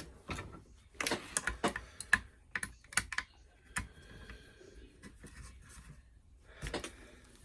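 Irregular sharp clicks and light metallic taps of small hand tools on a padlock being taken apart. They come thickest through the first few seconds, with a couple more near the end.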